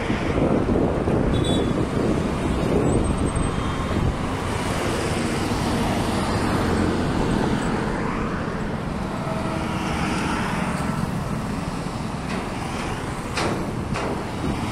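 Steady road traffic noise, vehicle engines running, with a couple of sharp clicks near the end.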